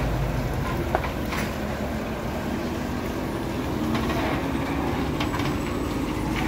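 Heavy truck diesel engine running steadily at low revs, with a few short sharp clanks.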